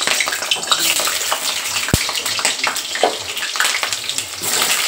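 Cubed potatoes frying in hot mustard oil in a kadai: a dense, steady sizzle full of small crackles, with one sharp click about two seconds in.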